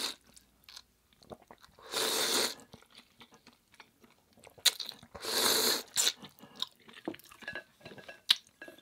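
Instant ramen noodles slurped from the bowl twice, each slurp under a second long, with chewing and small wet mouth clicks in between.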